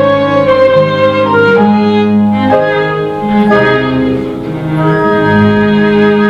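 Small classical ensemble of violins, cello, double bass, piano and trumpets playing long held chords, the violins on top.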